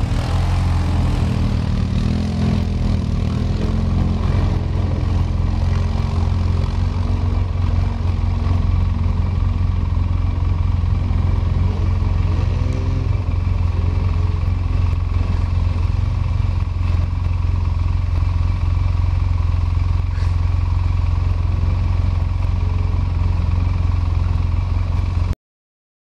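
Quad bike (ATV) engines running in the water as the quads wade through a shallow river, the pitch rising and falling a few times with the throttle. Rushing water over the rocks adds a steady hiss underneath.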